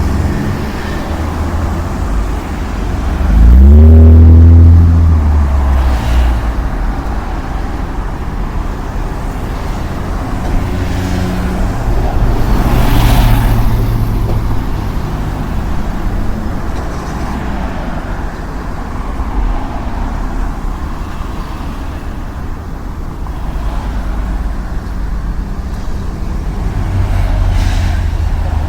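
Street traffic: a steady low rumble of road vehicles. About four seconds in, a vehicle passes close, loud, its engine pitch rising then falling. Further cars swish past around thirteen seconds in and near the end.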